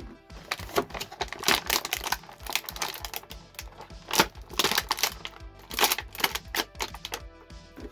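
Background synthwave music with a steady beat, over rapid irregular clicks and crinkles of plastic toy packaging and parts being handled.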